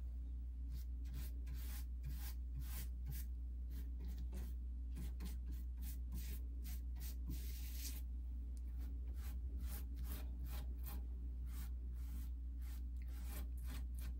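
Paintbrush stroking paint along the edge of a cabinet door: a run of short, quick scratchy brush strokes, about two to three a second, over a steady low hum.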